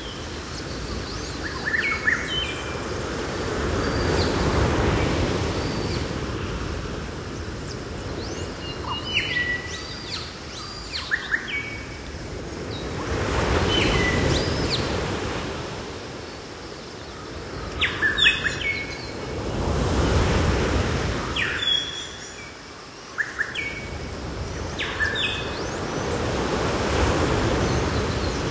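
Surf washing in slow swells about every seven seconds, with birds chirping in short calls over it.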